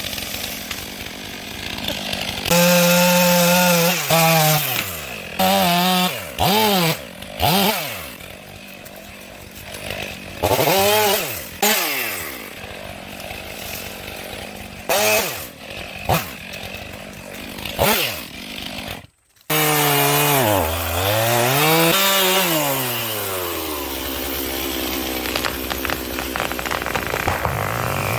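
Chainsaw cutting pine, running in repeated bursts with its pitch rising and dipping again and again, and a brief break about two-thirds through.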